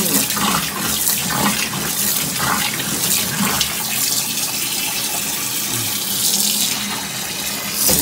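Water running steadily from a hose into the wash tub of a portable twin-tub washing machine.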